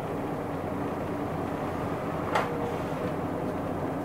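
Steady engine and road noise heard inside a Hino Blue Ribbon II city bus, with one sharp click or rattle about two and a half seconds in.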